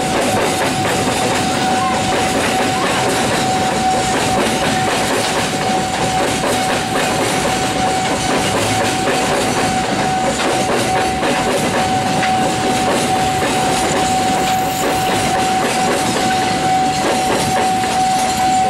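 A freight train of empty flat wagons rolling past at close range, its wheels clattering over the rail joints, over a steady whining tone.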